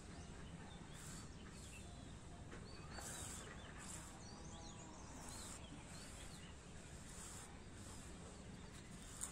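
Faint outdoor ambience: a steady low hiss with many small, scattered bird chirps.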